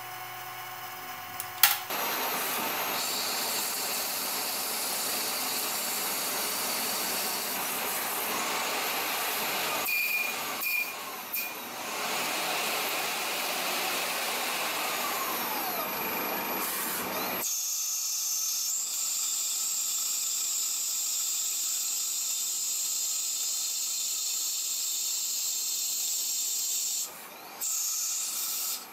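CNC lathe turning metal, with a steady hiss of spindle, cutting and coolant; a brass tube is turning under the tool. There is a sharp click about one and a half seconds in, and the noise changes abruptly twice: it swells about two seconds in, and near seventeen seconds its lower part drops away, leaving a higher hiss.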